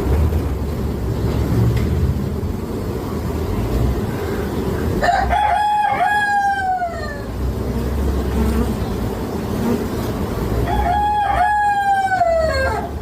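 Two long pitched animal calls, each about two seconds, each falling in pitch at the end, over a steady low rumble.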